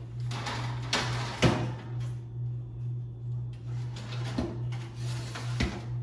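Metal oven rack and baking pan handled in an open oven: a few sharp metallic knocks and clatters, the loudest about a second and a half in, over a steady low hum.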